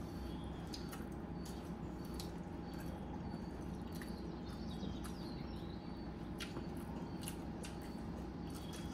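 Faint chewing and eating sounds, with a few soft clicks scattered through, over a steady low background hum.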